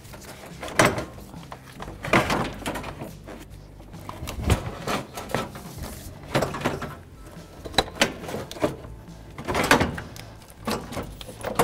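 Several knocks, clunks and scrapes as a Toyota Camry's A/C compressor is worked into place in the engine bay, bumping against the surrounding parts.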